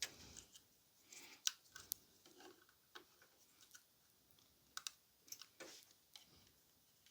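Faint, scattered clicks and light scrapes of the power and data cable connectors being pushed onto a 2.5-inch SATA SSD inside a desktop PC case.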